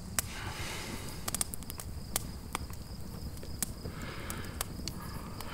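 Campfire crackling: irregular sharp pops and snaps over a steady low outdoor night ambience, with faint insects chirring.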